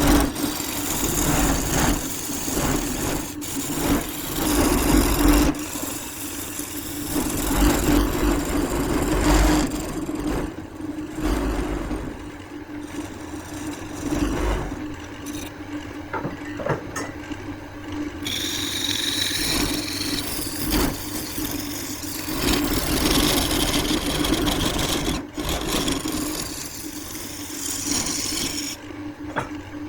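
Wood lathe running with a steady hum while a tool scrapes and cuts the spinning wood in uneven passes, with a few sharp clicks.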